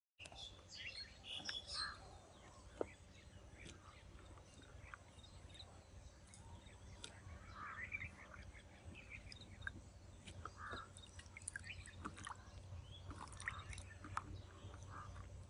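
Birds chirping faintly and on and off in the background, over a steady low hum. A few soft clicks come from hands working pumpkin seeds in a bowl, the sharpest about three seconds in.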